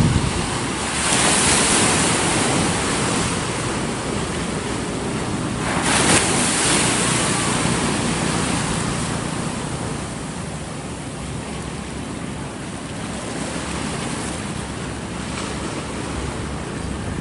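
Sea waves breaking and washing onto a rocky shore, with louder waves breaking about a second in and again about six seconds in.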